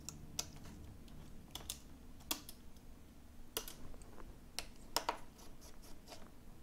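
Scattered light clicks and taps, a few sharper ones among them, from a precision screwdriver and small metal parts being handled on an opened iPhone 7 Plus during disassembly.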